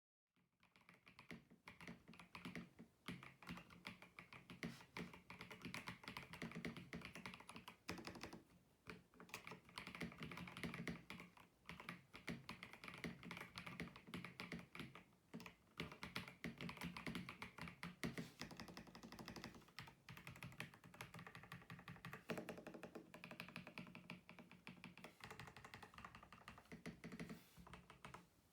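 Typing on a mechanical keyboard fitted with PBT Cherry-profile keycaps: a fast, steady stream of key clacks with a few brief pauses.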